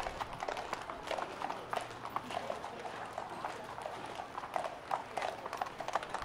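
Horse hooves clip-clopping in an irregular run of short knocks.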